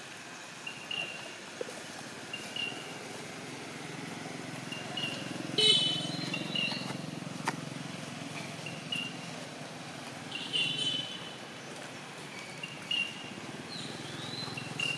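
Outdoor ambience: short high chirps repeating every second or two, two louder squeaky animal calls (the first about six seconds in, the second past the middle), and a low engine hum from a distant vehicle through the middle.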